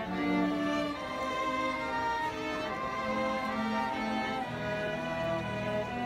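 Student string orchestra of violins and cellos playing together: bowed notes held and moving from pitch to pitch, with a lower held line joining about two thirds of the way through.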